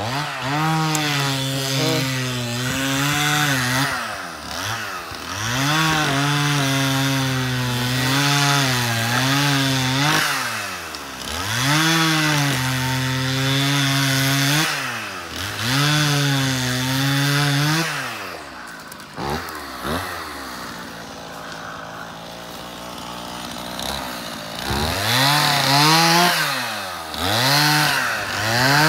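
Two-stroke chainsaw bucking a fallen tree into firewood, held at high revs through each cut and dropping back between cuts several times. Past the middle it settles to a lower, quieter idle for several seconds, then revs up again near the end.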